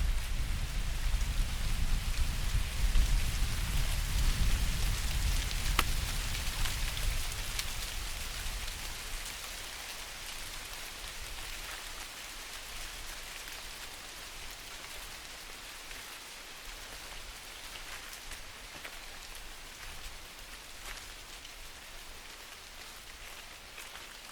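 Rain falling steadily on forest leaves: an even hiss with scattered fine drop ticks. A low rumble fills the first several seconds, then it settles to a quieter steady patter.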